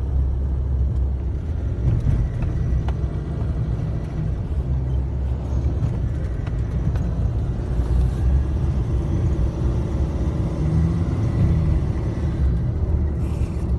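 Steady low rumble of road vehicles: engine and road noise with no clear rise or fall.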